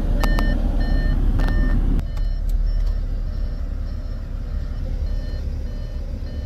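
Audi S5 Cabriolet's power soft top folding down: a low mechanism drone with a few sharp clicks in the first second and a half, the drone dropping markedly about two seconds in. A car warning chime beeps over and over, about one and a half times a second.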